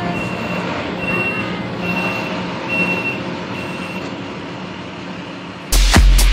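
Box truck backing up, its reversing alarm beeping about once a second over the steady hum of its engine; the beeps stop about three seconds in. Near the end, loud dance music with a heavy beat cuts in.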